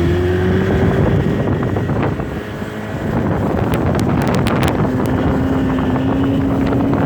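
Motorboat engine running under way, its pitch climbing at the start, easing off briefly about two seconds in, then holding steady, with wind buffeting the microphone and a few sharp clicks about four seconds in.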